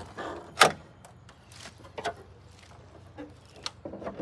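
Hood of a Jeep Cherokee XJ being unlatched and lifted open: a sharp clack about half a second in as the latch releases, then a few lighter clicks and knocks as the hood is raised.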